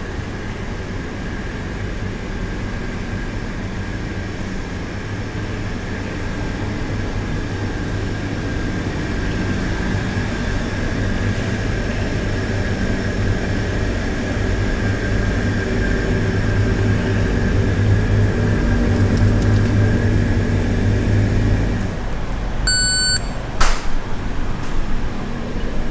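Convenience-store room tone: a steady hum of refrigerated display cases and air conditioning, gradually growing louder. Near the end a checkout barcode scanner beeps once, followed shortly by a sharp click.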